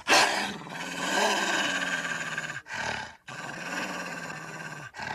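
Cartoon wolf character growling and snarling. Several short clips are cut together, with sudden breaks between them.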